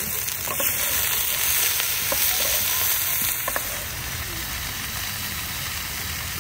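Shrimp and vegetables sizzling steadily in margarine and oil in a frying pan while being stirred, with a few light clicks of the utensil. The sizzle eases a little about four seconds in.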